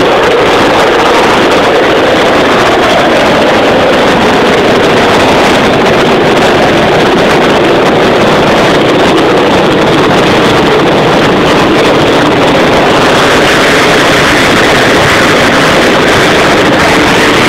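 The Dragon 33 rescue helicopter running loud and close as it takes off, a steady mix of turbine and rotor noise. A brighter, higher hiss comes up about three-quarters of the way through.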